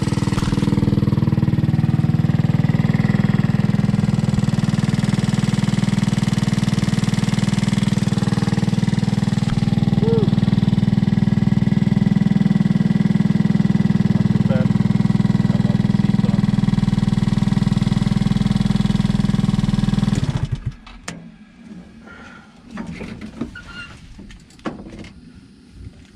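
A buggy's 150cc GY6 single-cylinder four-stroke engine runs steadily, then cuts off suddenly about 20 seconds in. Scattered knocks and rattles follow.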